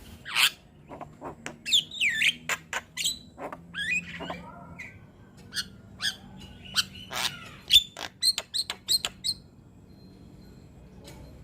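Young Javan myna (jalak kebo) singing energetically: a fast run of sharp whistles, clicks and gliding notes that falls quiet about nine seconds in.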